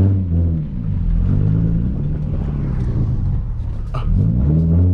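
Nissan Z's V6 engine heard from inside the cabin while driving through a U-turn. The revs drop about a second in, run lower for a few seconds, then climb again near the end as the car accelerates.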